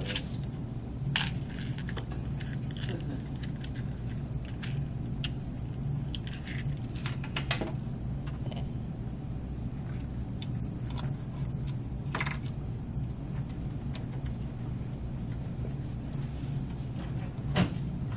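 Scattered metallic clicks and taps of small screws and a screwdriver as a fan is screwed onto a CPU heat sink, the sharpest about a second in, twice in the middle and near the end, over a steady low hum.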